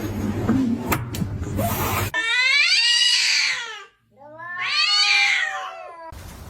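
A cat giving two long, drawn-out yowling meows, each about two seconds and rising then falling in pitch, after a couple of seconds of background noise with a few knocks.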